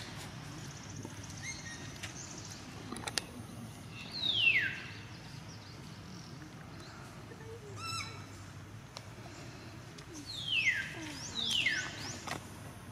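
High-pitched animal calls, each sliding quickly down in pitch within about half a second: one about four seconds in, then a quick run of three or four near the end.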